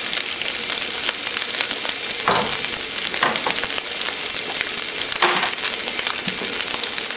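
Fried rice with beef, egg, peas and carrots sizzling and crackling in a hot wok over a gas burner, with three short knocks about two, three and five seconds in.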